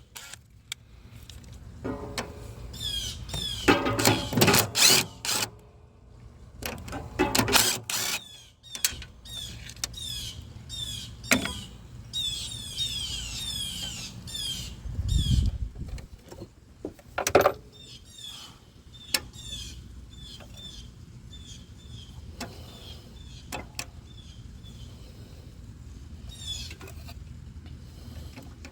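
Irregular clicks, knocks and clanks of hand tools and metal parts as the wires are pulled off a zero-turn mower's starter solenoid and its mounting nuts are worked loose, with a dull thump about halfway through. Short high chirps repeat in the background.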